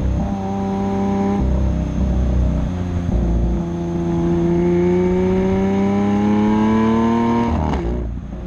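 Lamborghini Aventador's V12 with the factory race exhaust under acceleration. The engine note shifts about a second and a half in and drops around three seconds in as it changes gear. It then rises steadily for several seconds and cuts off near the end as the throttle is lifted.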